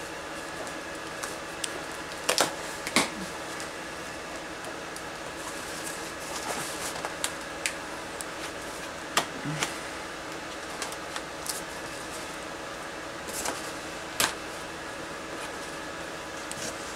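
Cardboard shipping box being opened by hand: scattered crackles, taps and scrapes as the packing tape is cut and peeled and the flaps are pried up. A steady hum runs underneath.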